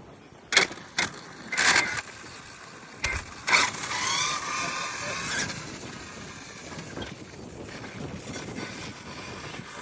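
Motor of a high-speed RC speed-run car whining, rising in pitch about four seconds in and then fading, with another rising whine near the end. Several sharp knocks come before the first whine.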